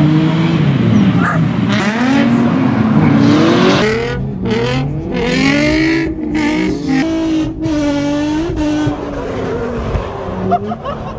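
Drift cars' engines revving up and down as they slide through tandem runs, with tyre skid noise. The sound changes abruptly a few times as short clips are cut together.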